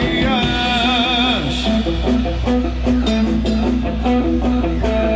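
Live rock band playing: an electric guitar line with bent, wavering notes over a steady bass, with no singing.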